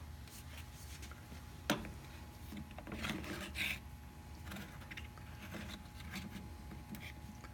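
Workshop handling noises: a sharp click about two seconds in, then a second or so of rubbing and light knocking, with a few small clicks after, over a faint steady hum.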